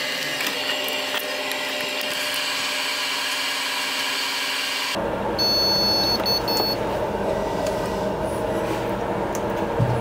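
Steady whir of cooling fans from a running test-bench PC, with a short run of high electronic beeps about halfway through.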